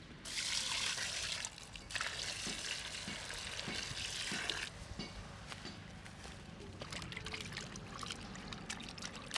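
Water poured into a metal bowl of raw chicken wings, in two pours about half a second apart, the second about two and a half seconds long. Then lighter splashing and small clicks as hands wash the wings in the water.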